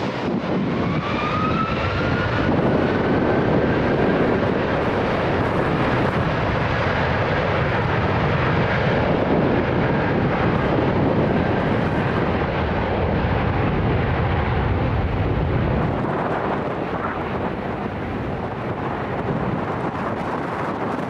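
Boeing 757 jet engines at takeoff power. A whine rises in pitch over the first few seconds, then the jet noise holds steady with a deep rumble that eases off about three-quarters of the way through.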